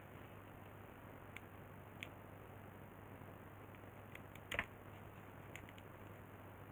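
A few faint, scattered clicks over a steady background hiss and low hum, the loudest a little past halfway.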